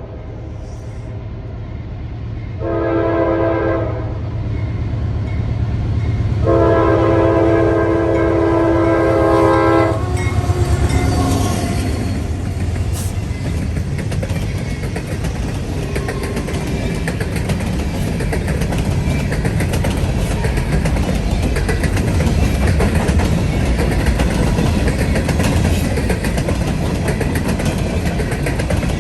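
Diesel locomotive air horn sounding a short blast and then a long one, the close of a grade-crossing signal. The train then passes close by with a loud engine rumble and the steady clatter of wheels on the rails.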